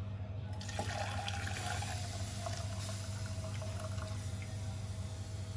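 Beaten egg poured from a bowl into a saucepan of hot water, splashing in from about half a second in and running on steadily, over a steady low hum.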